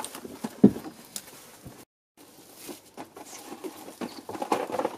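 Plastic shrink-wrap crinkling and tearing as it is slit with a knife and pulled off a boxed chocolate advent calendar, in scattered rustles and clicks. A single sharp knock sounds under a second in.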